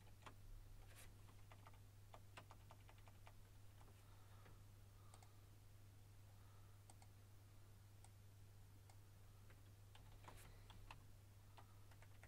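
Near silence with faint computer mouse clicks, a quick run of them about two seconds in and a few more near the end, over a low steady hum.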